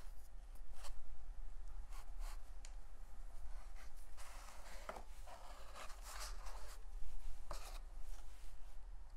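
A modeling tool scratching and scraping into soft terra cotta air-dry clay in short, irregular strokes, with a longer run of scraping about halfway through. This is texture being worked into the pot. A steady low hum runs underneath.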